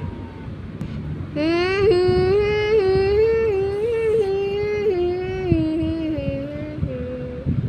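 A siren-like wail: one long pitched tone that glides up about a second and a half in, wavers up and down, then sags lower and breaks off near the end, over a low rumbling noise.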